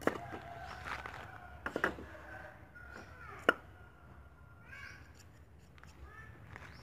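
Steel cleaver chopping a root on a thick wooden chopping block: a few sharp knocks, the loudest about three and a half seconds in. Animal calls sound in the background twice.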